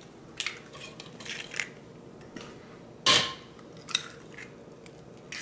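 Eggs being cracked against the rim of a mixing bowl: a string of sharp taps and shell cracks, the loudest about three seconds in, with faint clinks from a wire whisk resting in the bowl.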